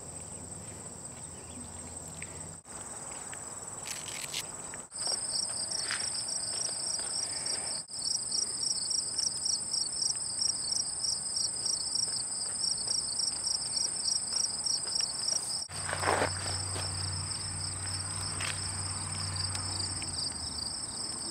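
Insects chirping: a steady high trill throughout, joined about five seconds in by a pulsing chirp that repeats about four times a second.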